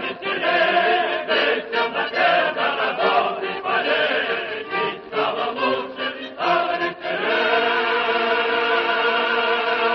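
Choir singing the last phrase of a Soviet patriotic song in Russian. About seven seconds in it settles into a long held closing chord.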